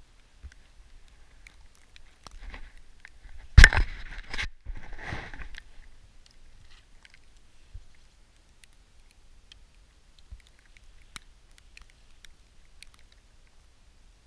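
Close handling noise from a compound bow and camouflage clothing right at the microphone: a loud rustling scrape about four seconds in, a softer one just after, then scattered faint clicks while an arrow is fitted to the bow.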